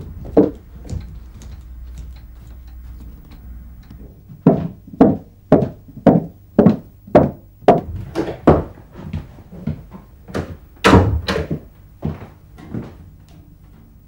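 A run of hard knocks, about two a second and slightly uneven, beginning a few seconds in and thinning out near the end, with a single sharp knock at the very start.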